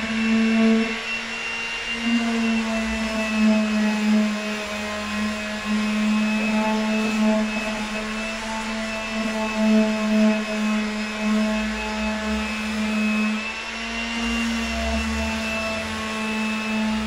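Handheld electric sander running steadily on a wooden board. Its motor gives a steady hum with a faint high whine above it, wavering slightly in pitch as it is pushed over the wood.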